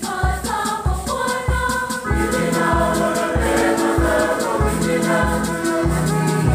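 Mixed church choir singing a Swahili Catholic hymn with organ accompaniment over a steady low beat. About two seconds in, held organ notes and a bass line come in and the music grows fuller and louder.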